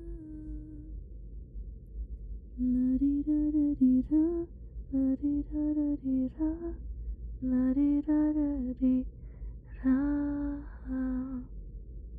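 A woman humming a soft, slow lullaby-like tune without words, in short phrases of sustained notes.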